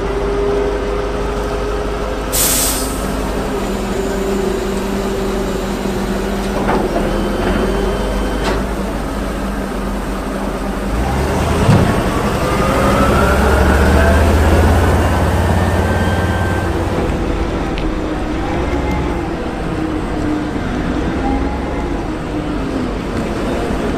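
A large amphibious military truck's engine running as it drives slowly, with a short air-brake hiss about two and a half seconds in. About halfway through the engine picks up, with a rising whine, then settles back.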